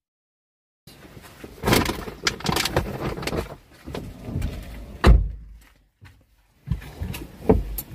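Rustling, clicks and knocks of someone moving about at a car's open driver's door, with a heavy thump about five seconds in and a smaller one near the end.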